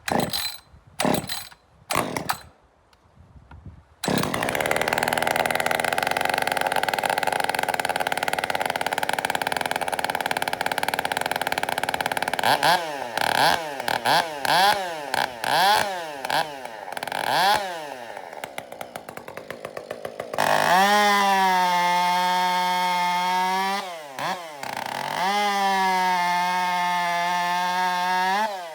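Muffler-modded Husqvarna 562 Mark I two-stroke chainsaw. After a few short sounds it runs steadily at full throttle, cutting wood, then its revs rise and fall about once a second. Near the end it runs at a high steady pitch, wide open with no load, dipping briefly once.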